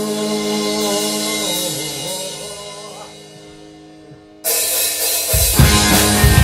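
Live rock band music: a held chord and sung note die away, then at about four and a half seconds the full band comes back in suddenly with a cymbal crash, drums and bass.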